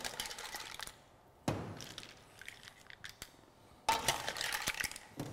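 Cooked mussels clinking and clattering shell on shell as they are ladled out of a stainless steel pot into a ceramic plate, with knocks of the metal ladle against the pot. Separate clicks and knocks, then a denser clatter about four seconds in.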